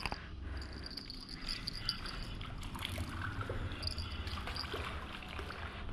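A hooked yellow catfish (manjatta) splashing and rippling at the water surface as it is drawn in on the line. Insects chirp in a thin, high, on-and-off trill over a low steady rumble.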